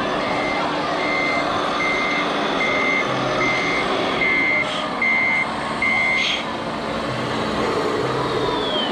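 Reversing alarm from a radio-controlled dump truck's sound module: a single high beep about every 0.8 seconds over a steady low hum, stopping about six seconds in as the truck comes to rest.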